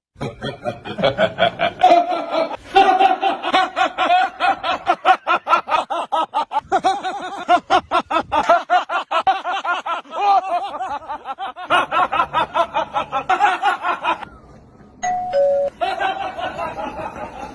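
Prolonged laughter in rapid rhythmic bursts, with a brief pause near the end.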